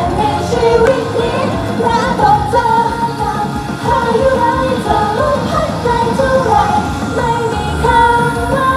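Idol-pop song played loud through stage PA speakers: several young women's voices singing a melody over a full pop backing track.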